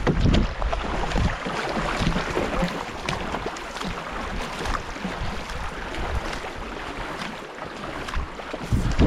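Rushing river water and paddle splashes around a racing canoe, with scattered short knocks and low wind buffeting on the microphone at the start and near the end.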